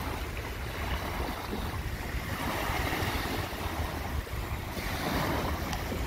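Small waves washing up onto a sandy beach, the surf rising and falling, with wind rumbling on the microphone.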